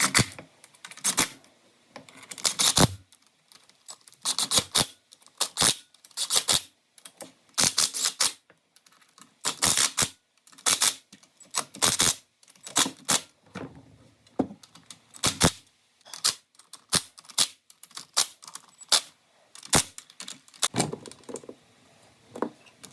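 Ratchet wrench clicking in short runs, with pauses between, as the oil pan cover bolts are tightened.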